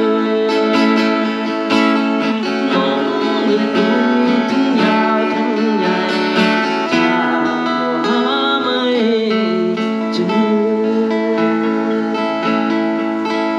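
Acoustic guitar being played, with a voice singing along: a live song performance.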